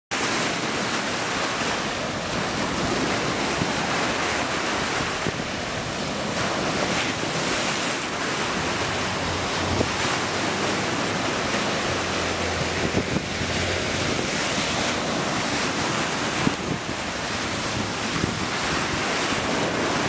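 Ocean surf breaking and washing on a beach, a steady wash of noise, with wind blowing across the microphone and a few brief low buffets in the middle.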